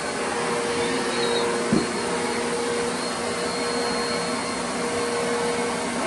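Canister vacuum cleaner running steadily, a constant rushing noise with a steady hum, while its floor head is pushed across the floor. A single short knock comes a little under two seconds in.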